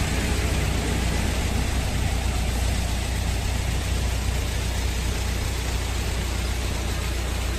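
Steady street traffic noise with a constant low engine rumble, as of vehicles running or idling close by.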